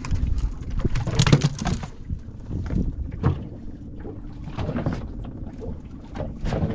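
Fishing boat at sea: a steady low rumble under irregular splashing and knocking, with wind on the microphone.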